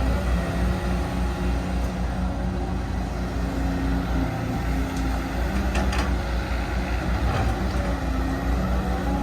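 Caterpillar 315D L hydraulic excavator running under load, its diesel engine droning steadily with a hydraulic whine that rises and falls in pitch. A few light knocks come about five to six seconds in.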